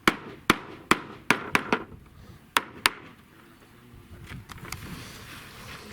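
Hammering: a run of sharp knocks, about two or three a second, that stops about three seconds in, with a couple of fainter knocks a little later.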